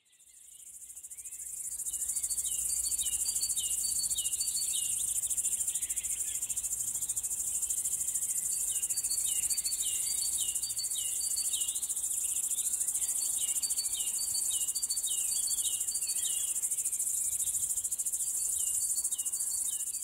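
Crickets chirping: a steady high-pitched trill with runs of repeated lower chirps over it, fading in over the first two seconds.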